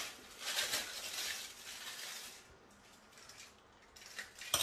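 A kitchen utensil scraping in a bowl in a scratchy, pulsing rhythm that dies away about two and a half seconds in, followed by a sharp knock near the end.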